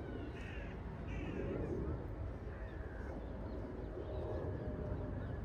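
Jet airliner rumbling steadily overhead, with a crow cawing a few times over it in the first couple of seconds.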